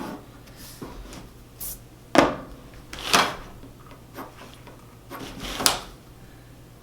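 Pencil strokes scraping over paper on a drafting board as lines are darkened in: a handful of short, sharp strokes, the loudest about two seconds in, with others about a second later and near the end.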